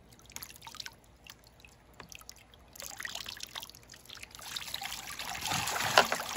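Scattered drips at first, then water poured from a small plastic bucket into the perforated top tray of a Step2 Rain Showers Splash Pond water table. From about halfway in it rains down through the holes into the pond below as a steady splashing patter that grows louder toward the end.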